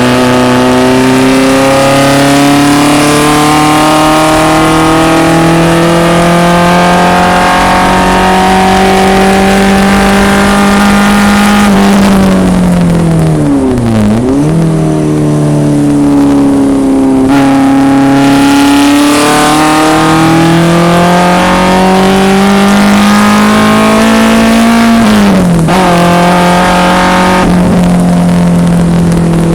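1974 BMW 2002 race car's four-cylinder engine under hard acceleration, revs climbing steadily for a long pull. About twelve seconds in the revs fall away to a low point, then climb again. Near the end they drop abruptly at an upshift and keep pulling.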